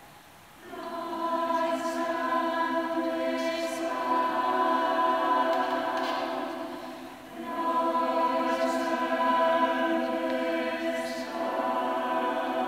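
Mixed choir singing long sustained chords, coming in about a second in, breaking off briefly near the middle and starting a new held phrase.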